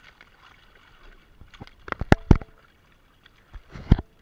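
Fish thrashing in a cast net at the water's surface, slapping and splashing the water in two short sharp clusters, about two seconds in and again near the end.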